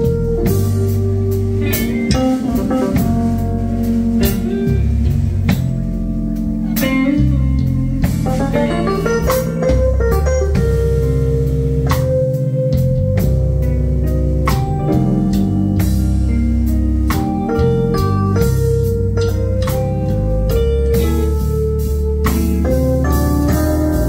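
Live band music: electric guitar playing over a moving bass line, with regular drum and cymbal hits.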